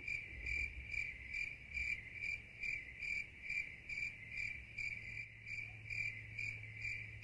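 Cricket chirping in an even rhythm, about two high chirps a second, over a faint steady low hum.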